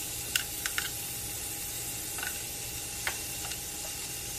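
Chicken strips sizzling in melted butter in a frying pan, a steady hiss with a few sharp clicks of handling scattered through it.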